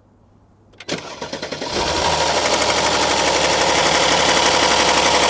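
Mercedes-Benz GLS M276 V6 cranking and catching on a cold start about a second in, then running with a loud, rapid, even clatter. This is the cold-start rattle that is usually cured by replacing the two intake camshaft adjusters; here the owner links it to a valve in the oil pan leaking off pressure, so oil pressure is slow to build.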